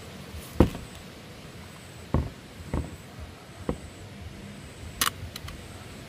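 Handling noise from a power bank being turned over in the hands: four short dull knocks in the first four seconds, then a sharper click about five seconds in.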